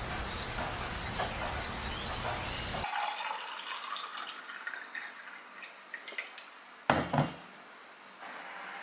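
Water poured from a jug into a tall drinking glass, the pitch of the pour rising steadily as the glass fills, then two sharp knocks on the stone counter as the jug is set down. Before the pour, a steady low hum of outdoor city traffic.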